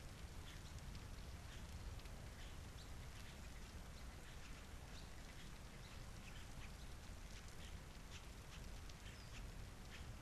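Light rain falling, with faint short bird calls scattered through it over a low steady rumble.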